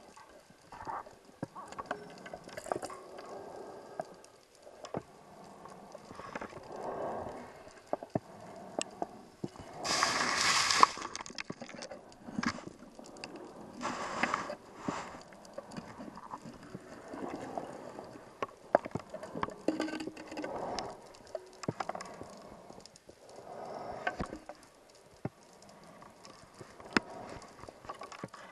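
Scuba diver breathing through a regulator underwater: swells of exhaled bubbles come every three to four seconds, the loudest about ten seconds in, with scattered sharp clicks between them.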